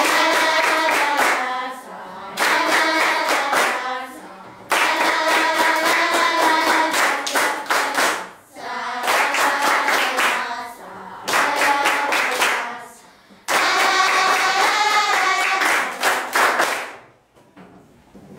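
A group of children singing together in unison, keeping time with rhythmic hand-clapping. The song comes in phrases of a few seconds each, with short breaks between them.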